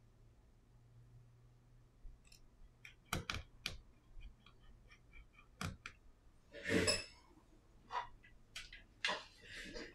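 Small clicks and taps of a precision screwdriver and iPhone 11 display parts being handled on a silicone repair mat, starting about two seconds in, with one longer, louder clatter about seven seconds in.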